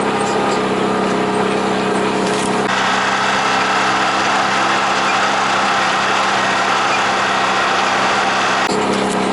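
Small off-road vehicle engine running steadily while riding a dirt back road. Its note changes to a rougher, noisier sound about three seconds in and settles back near the end.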